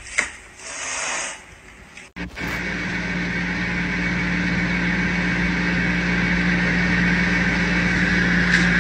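A short burst of noise, then from about two seconds in a steady motor hum with a low tone and a higher whine, slowly getting louder.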